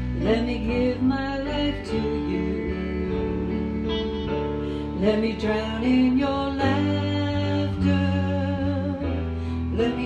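A small band performing a song live: a voice singing over strummed acoustic guitar and an electric bass.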